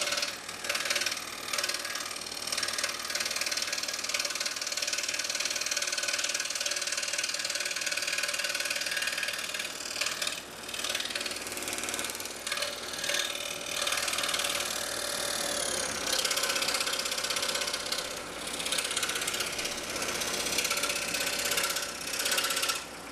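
Scroll saw cutting thin Baltic birch plywood, the recording sped up about eightfold, so the blade's cutting becomes a fast, high-pitched mechanical clatter with frequent brief dips.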